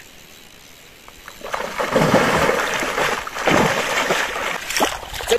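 Water splashing, starting about one and a half seconds in and continuing in a rough, uneven run.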